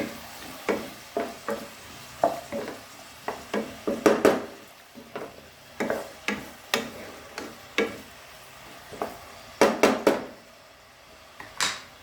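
Chopped onion and garlic sizzling in olive oil in a pan while a utensil stirs them, scraping and knocking against the pan in irregular strokes about once or twice a second, with a few louder knocks near the end.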